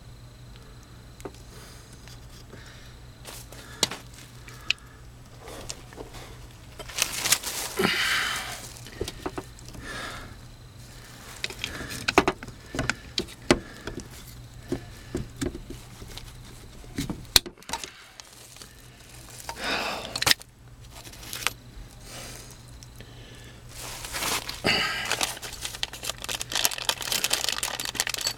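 Irregular scraping, crinkling and rustling with scattered sharp knocks and clicks: someone handling tools and materials while working on plumbing under a mobile home. Longer rustling stretches come about a third of the way in, around two-thirds through, and near the end.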